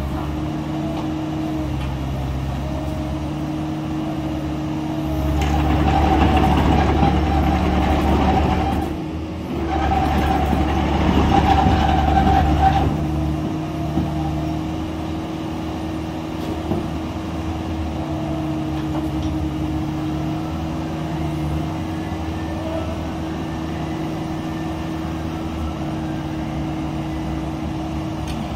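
Cat 305E2 mini excavator's diesel engine running steadily as the boom and bucket are worked. About five seconds in and again about ten seconds in it gets louder for a few seconds each, a higher steady whine rising over the engine under hydraulic load.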